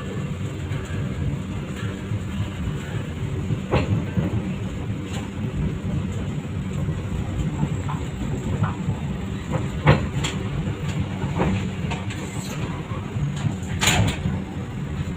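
Passenger train running on the track: a steady low rumble with a few sharp knocks from the wheels and couplings, the loudest about ten and fourteen seconds in.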